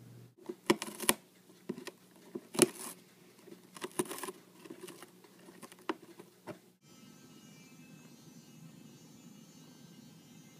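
A cat biting and gnawing the edge of a cardboard box: a run of sharp, irregular cardboard crackles and clicks. About seven seconds in, this gives way to a faint steady hum.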